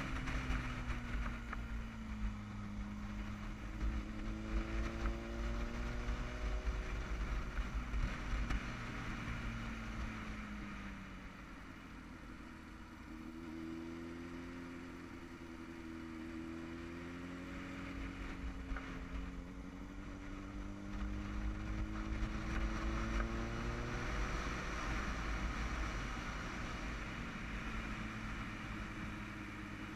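Motorcycle engine under way downhill, its revs falling and rising again several times through the bends, with a heavy low wind rumble on the helmet-mounted microphone. It runs quieter for a few seconds in the middle.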